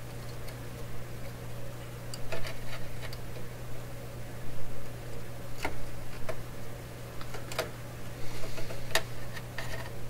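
A few scattered light clicks and taps from handling a wire and small hand tools, over a steady low hum.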